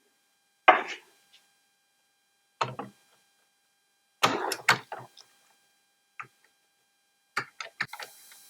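Hands handling and cleaning a cassette deck: a string of short knocks, clicks and brief rubs, some single and some in quick clusters, with quiet gaps between them.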